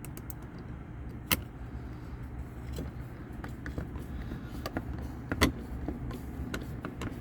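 Light metal clicks and taps from hand-fastening screws on a replacement furnace inducer motor, over a steady low hum, with two sharper clicks about a second in and near five seconds.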